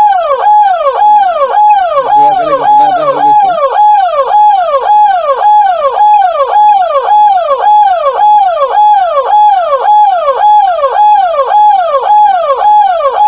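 Ambulance's electronic siren sounding in a fast repeating cycle, each a quick rise and a falling sweep, about two a second. A brief low tone sounds under it about two seconds in, for a second and a half.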